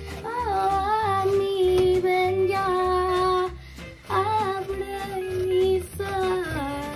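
A girl's voice singing without words, with long held notes and sliding runs, over a song's instrumental backing.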